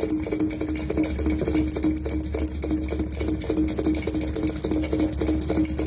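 Old stationary engine with large flywheels running steadily: an even knocking about four beats a second over a steady hum. The uploader takes this kind of sound for a compressor pumping water out from underground.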